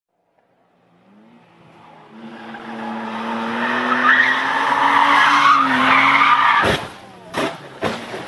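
A BMW coupe's engine running hard while its tyres squeal in a long slide, the squeal building until it is loud. About two-thirds of the way in it ends in a sharp crash, followed by a few more thuds as the car tumbles off the road.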